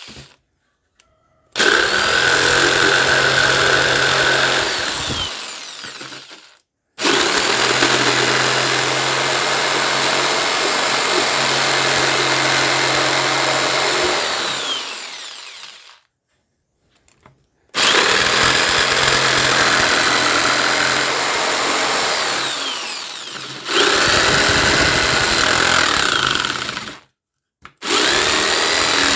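Handheld electric jigsaw cutting a thin wooden board, run in four bursts of several seconds each. The motor winds down and stops briefly between cuts, then starts up again.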